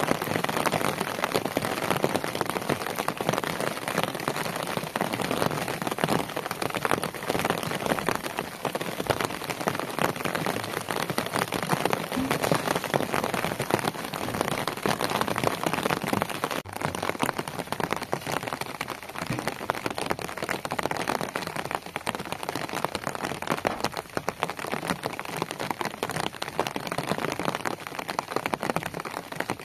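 Steady rain, a dense patter of raindrops.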